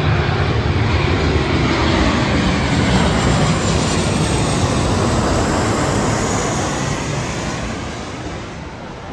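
Twin-engine jet airliner passing low overhead on its approach into San Diego, the engine and air noise of a loud, steady rumble. It swells to a peak about three seconds in and fades away over the last couple of seconds.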